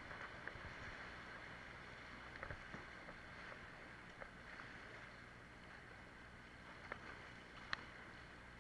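River water rushing and churning around a whitewater kayak, a steady hiss, with a few sharp knocks scattered through it, the loudest near the end.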